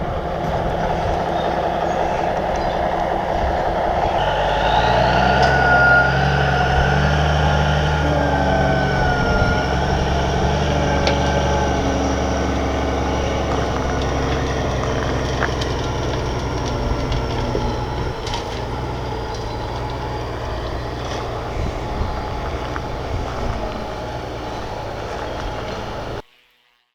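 Bulldozer's diesel engine running under load as it crushes and moves lava rock, with a high squeal from its steel tracks that rises and falls. The sound cuts off suddenly near the end.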